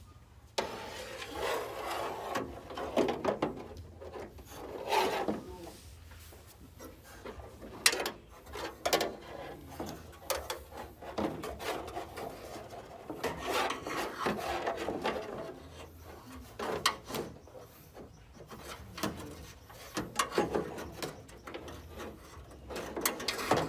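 A hand tool scraping and rubbing on the car wing in irregular strokes, with scattered sharp knocks. It starts about half a second in.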